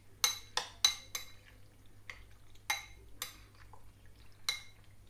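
Metal spoon clinking against a glass bowl while stirring chicken liver pieces in their spice marinade. There are about eight irregular ringing clinks, four of them close together in the first second and a half.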